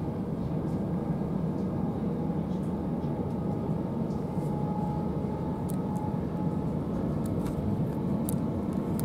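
Running noise inside the carriage of a c2c Class 357 electric multiple unit at speed: a steady low rumble of wheels on rail, with a faint steady whine and a few light ticks.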